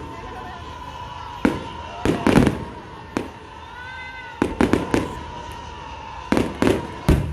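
Aerial fireworks exploding in irregular bangs, some single and some in quick clusters of two to four, with rumbling tails after the louder ones.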